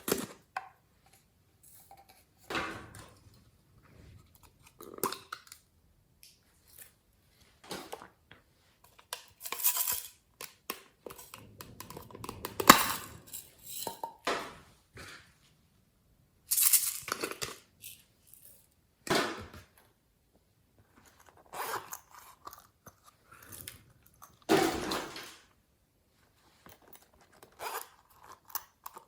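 Slime being mixed by hand with clay worked into it: short sticky, crackling bursts as it is pressed, stretched and torn, every second or two, with quiet gaps between.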